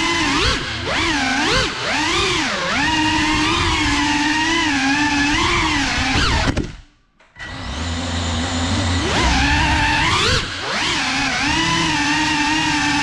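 Brushless motors and propellers of a GEPRC Cinelog35 cinewhoop FPV drone whining in flight, the pitch swooping up and down with each throttle change. About seven seconds in the motors cut out almost to silence for under a second, then spin back up.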